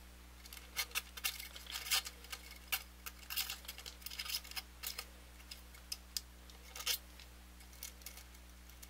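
Cut steel guitar-string ends being pulled out through a Telecaster's bridge by hand: a run of irregular light clicks and scrapes, busiest in the middle and ending about two seconds before the end.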